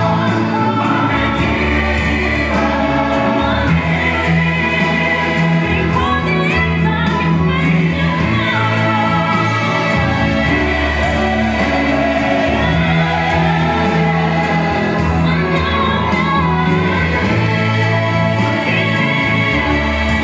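Gospel choir singing over instrumental backing, with a steady beat and a sustained bass line.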